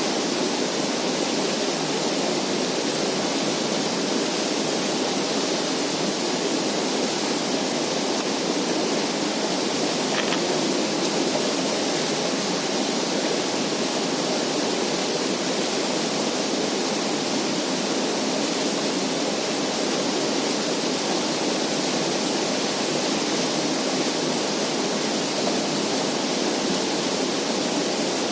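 Steady rushing noise that does not change or break.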